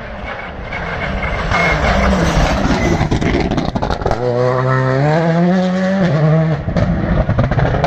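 Rally car coming through a corner and accelerating hard away, its engine note climbing in pitch, dropping briefly at a gear change about six seconds in, then climbing again.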